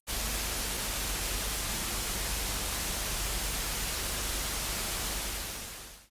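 Static hiss from a lost broadcast signal. It cuts in abruptly, holds steady, and fades out in the last second.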